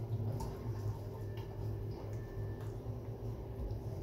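Wooden spatula scraping and lightly tapping a non-stick frying pan while saucy kebab pieces are lifted out and set down on flatbread, a few faint clicks. A steady low hum runs underneath.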